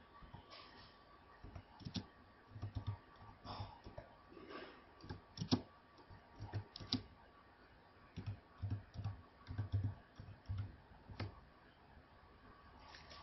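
Computer keyboard being typed on: irregular, faint key clicks, several a second, with a short pause a little past the middle.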